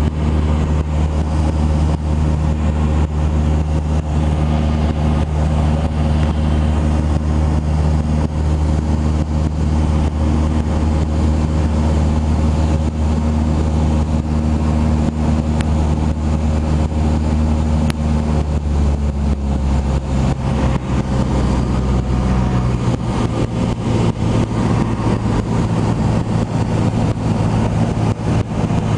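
Cessna 172 Skyhawk's piston engine and propeller droning steadily in cruise, heard from inside the cabin. The engine's tone shifts about twenty seconds in.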